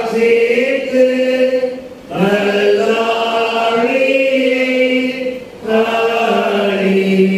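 A lone voice singing unaccompanied in a slow, chant-like way, holding long steady notes that step between pitches, in three phrases with short breaks about two and five and a half seconds in.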